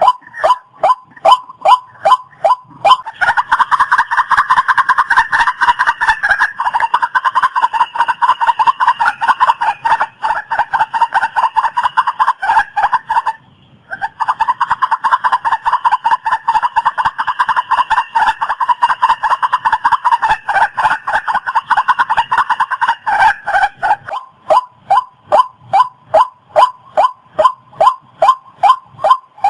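Waterhen calling: a loud run of evenly repeated notes, about three a second, that thickens into a denser, louder stretch for most of the middle, breaks off briefly about halfway, then thins back to single repeated notes near the end.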